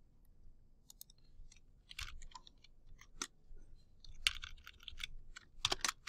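Computer keyboard keystrokes: a few scattered key clicks, then quicker runs of clicks about four seconds in and again just before the end.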